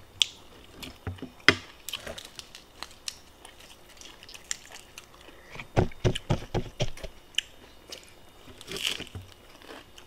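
A person eating close to the microphone: chewing and biting with scattered sharp mouth clicks, and a quick run of heavy chews a little past the middle.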